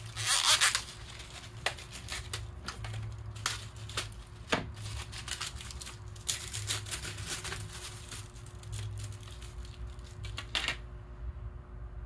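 Hands fitting a new SSD into an opened tablet computer: irregular small clicks and taps of parts and tools. There is a short crinkling rip about half a second in, and the clicking stops suddenly shortly before the end.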